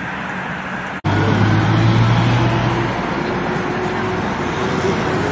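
Road traffic noise; about a second in it cuts abruptly to a louder scene with the steady hum of an idling vehicle engine.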